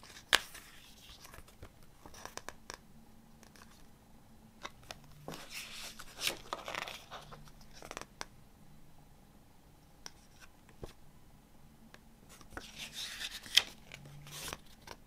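Paper pages of a CD booklet being turned by hand: three spells of swishing and rustling, with a sharp tick near the start and another near the end.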